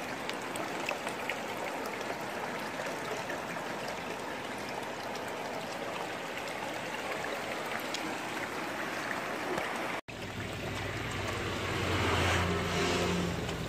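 Steady running, trickling water. After an abrupt cut about ten seconds in, a low steady hum joins bubbling, splashing water in an aquarium, which swells briefly near the end.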